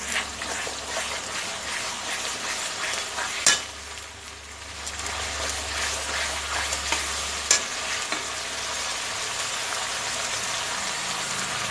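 Wet ground spice paste sizzling in hot oil in a metal kadhai while a metal spatula stirs and scrapes it. The spatula knocks sharply on the pan about three and a half seconds in and again about seven and a half seconds in.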